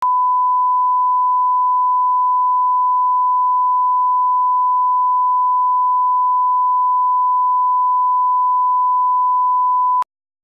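A steady 1 kHz sine-wave line-up tone, the reference tone at the head of a broadcast commercial, held at one pitch and cutting off abruptly about ten seconds in.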